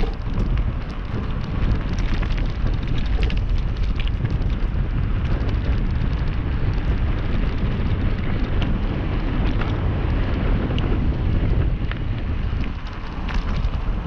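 Wind buffeting the microphone over the crunch and rattle of tyres rolling fast over a gravel track, with many small sharp clicks and knocks from stones and the bike's parts.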